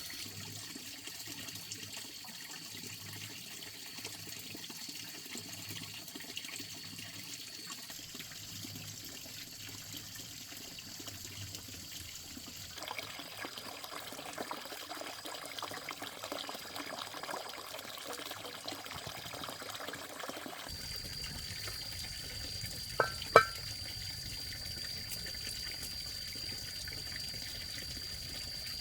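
Running water trickling and splashing, with two sharp knocks close together about two-thirds of the way through.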